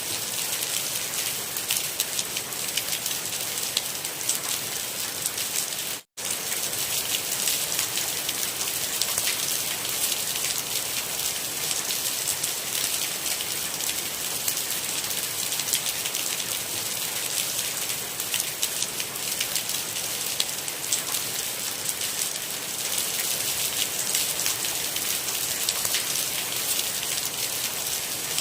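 Steady rain: a dense hiss of many fine drop ticks, with a brief cut to silence about six seconds in.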